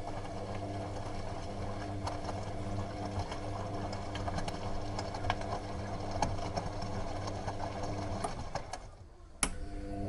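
Washing machine running: a steady motor hum with light clicks and rattles scattered through it. The sound dips about nine seconds in, then a sharp click marks a louder stretch starting near the end.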